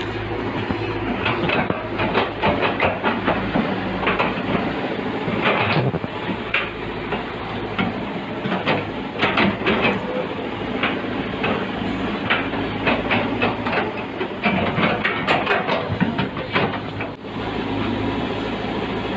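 Heavy construction machinery's diesel engine running steadily, with many irregular clanks and knocks over it throughout.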